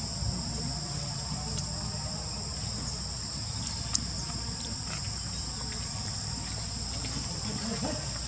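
Steady high-pitched insect chorus, held on two even pitches, over a low rumble, with a single sharp click about four seconds in.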